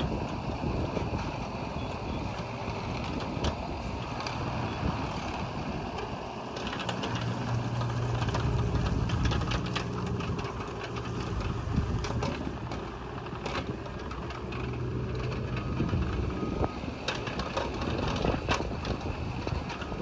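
Bobcat E20 mini excavator's 14-horsepower diesel engine running, growing louder for a few seconds near the middle and again later. Scattered knocks sound over it.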